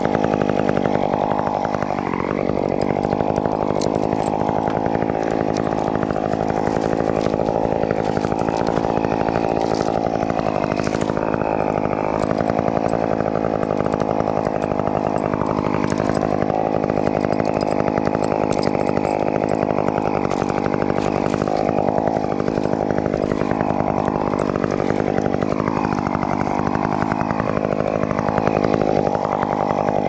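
Chainsaw running continuously at high speed, its pitch sagging briefly now and then and recovering, as when the chain bites into wood.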